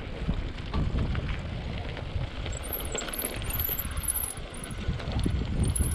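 Mountain bike riding over a dirt trail: a steady rumble of tyres and wind with scattered rattles and knocks from the bike, and faint high chirping from about halfway in.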